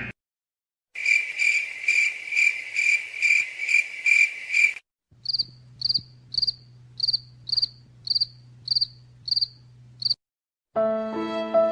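Crickets chirping, the stock 'awkward silence' sound effect, in two clips one after the other. First comes a lower chirp pulsing about twice a second. After a brief gap, a higher, sharper chirp repeats about twice a second over a low steady hum.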